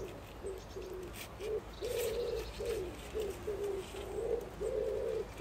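A pigeon cooing: a steady run of low, hooting coos, some short and a couple drawn out longer.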